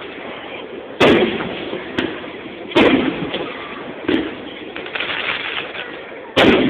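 Large aerial firework shells bursting in a rapid barrage: sharp booms about a second in, near three seconds, around four seconds and a loud one near the end, with a smaller pop near two seconds, each fading out over about a second.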